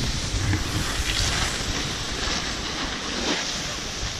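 Wind buffeting the microphone of a moving action camera, over a steady hiss of snow sliding and scraping underfoot as the wearer rides down a groomed slope, with a few brief louder swells of scraping.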